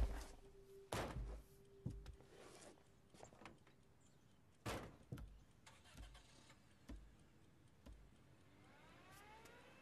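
Scattered soft knocks and thuds with short rustles: papers handled on a cloth-covered table and a chair moved as a man sits down, the loudest knock right at the start. A few faint rising tones come in near the end.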